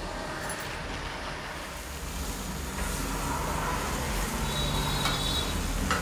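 Flour-coated chicken breasts sizzling as they fry in butter in a pan, over a steady low rumble. The sizzle grows louder about three seconds in.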